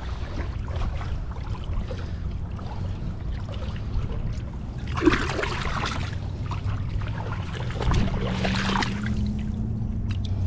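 Splashing and sloshing of shallow river water around a wader's boots and a released blue catfish, with louder splashes about halfway through and again shortly before the end, over a steady low rumble.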